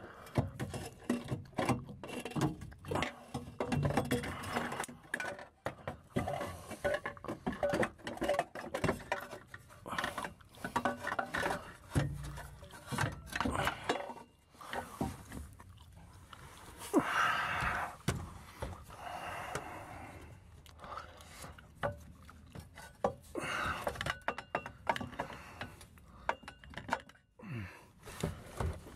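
Irregular metal clinks, knocks and scrapes as a car's exhaust flex pipe is handled and worked onto its mounting studs under the car.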